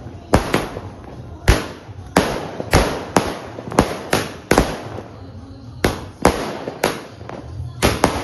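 Multi-shot sky shot firework cake going off: a rapid, irregular series of sharp bangs, about two a second, each trailing off in a fading crackle.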